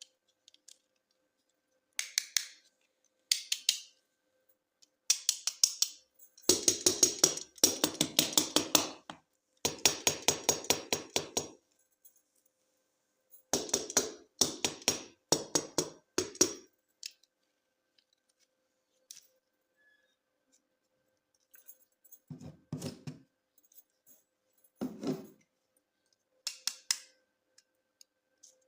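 Toy packaging being opened, heard as runs of rapid sharp clicks and snips broken by pauses, the longest runs a third of the way in.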